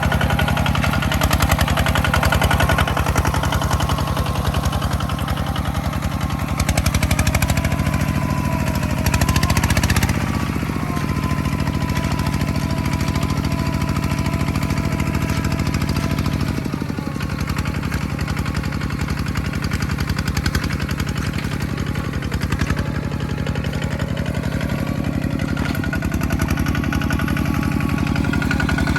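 A farm machine's engine running steadily with a fast even pulse. Its pitch shifts briefly about ten seconds in, and it drops a little in level about seventeen seconds in.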